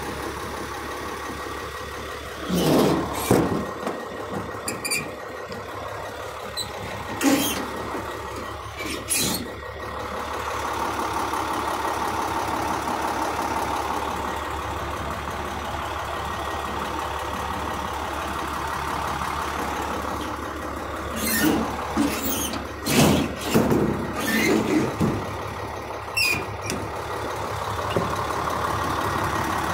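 Truck diesel engine idling steadily, with a series of metal clanks and bangs from the steel service-body compartment doors being opened, shut and latched. The clanks come in two groups, a few seconds in and again later on.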